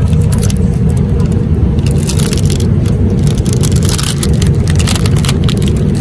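Steady low drone of an airliner cabin in flight, with bursts of crinkling and scraping as the foil-and-paper lid is peeled off a hot meal tray.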